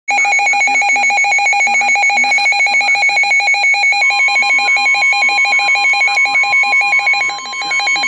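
Weather alert radio sounding its warning alarm: a loud, rapidly pulsing electronic beep. About halfway through, the steady 1050 Hz NOAA Weather Radio warning tone joins under it. Together they signal that a severe thunderstorm warning is being received.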